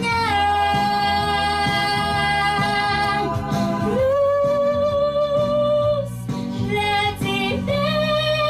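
A young girl singing a blues song solo with instrumental backing, holding long sustained notes: one for about three seconds from the start, then a lower one from about four to six seconds in.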